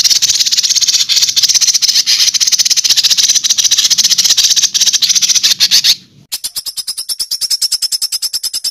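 Recorded songbird calls played as a masteran training track: a dense, high-pitched rattling trill, then after a brief break about six seconds in, a second, evenly pulsed trill of roughly nine beats a second.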